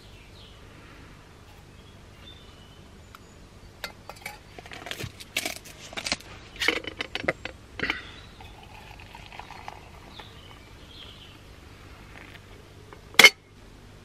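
Metal spoon and camp cookware clinking and knocking in a quick run of sharp clinks as powder is scooped from a jar into a metal cup, followed by water poured faintly from an aluminium kettle into the cup. One loud sharp knock near the end.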